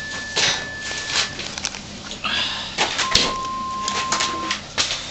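Scuffling and rustling as cats play with a feathered toy on a wooden floor. A steady high tone runs through the first second or so, and a lower steady tone sounds for about a second and a half from three seconds in.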